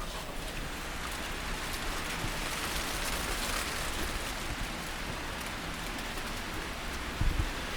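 Heavy typhoon rain falling in a steady hiss that swells a little a few seconds in, with a brief low bump about seven seconds in.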